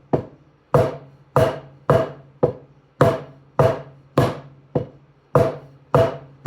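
Slow, even taiko bachi strokes, about one every 0.6 seconds, some struck softer than others in an accent pattern, each leaving a short ring.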